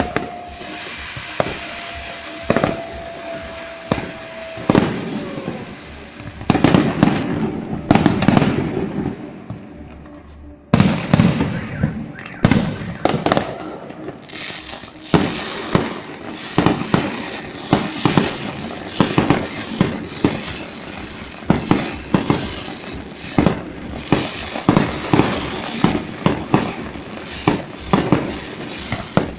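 Fireworks display: sharp bangs and crackling bursts from exploding shells. They come sparsely at first, then as a dense, rapid barrage from about six seconds in, with a brief lull near the ten-second mark. A single steady tone, falling slightly, runs through the first five seconds.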